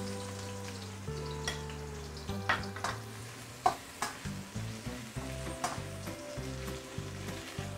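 Julienned ginger and garlic cloves sizzling in hot oil in a stainless-steel wok while being stir-fried with a metal spatula, which clinks sharply against the wok a handful of times.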